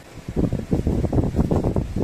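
Rustling and scraping of plastic storage-rack trays being pulled out of a cardboard box and handled, a dense irregular run starting about a third of a second in.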